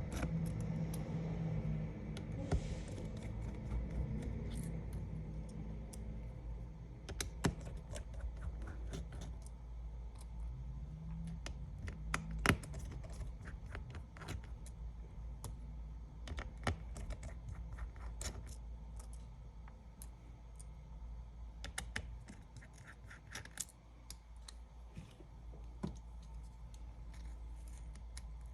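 Scattered light clicks and short scrapes of small hand tools working on an iPad during disassembly, over a steady low hum.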